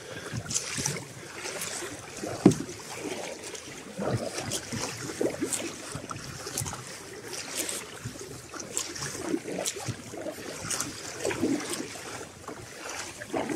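Sea kayak paddle strokes splashing and water washing against a plastic sit-on-top kayak's hull as it is paddled hard through choppy swell, with irregular splashes about once a second. A sharp knock about two and a half seconds in is the loudest sound.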